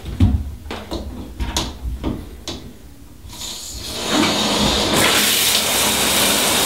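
A few knocks and clicks of handling the shower fittings, then about three and a half seconds in the shower comes on: water spraying from a newly filter-fitted shower head onto the stall, a steady loud hiss.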